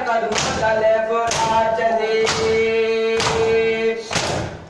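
Voices chanting a noha, a Shia lament, with one long held note in the middle, over the sharp slaps of matam, hands striking the chest in unison about once a second. The chanting fades near the end after a last slap.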